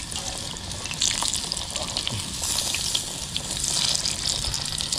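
Battered catfish deep-frying in hot oil, with a steady sizzle and scattered crackles that get louder about a second in. The oil is running a little too hot.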